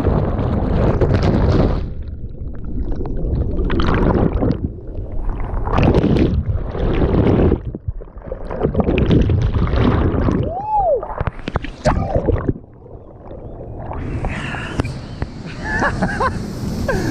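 Loud waterfall water rushing and splashing, with wind buffeting the microphone in irregular surges.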